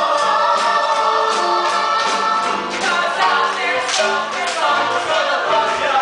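Stage musical ensemble of mixed voices singing a chorus together, holding notes over a steady beat.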